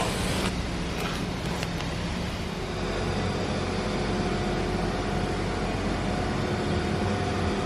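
A steady machine hum with a few faint steady tones, running throughout. There are brief scraping clicks in the first couple of seconds.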